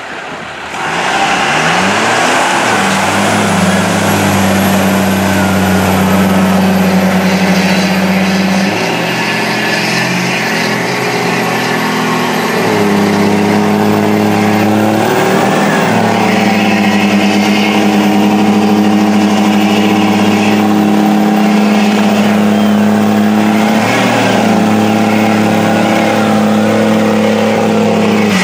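Lifted diesel mega trucks' engines held at high revs while plowing through a deep mud hole: a steady drone that shifts pitch several times, with a thin high whistle that rises over the first few seconds and then holds.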